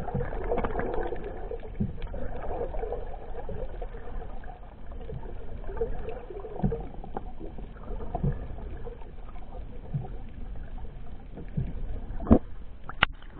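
Muffled underwater sound from a submerged camera: a low, wavering watery rumble with some bubbling. It is broken by a few dull knocks and a sharper click near the end.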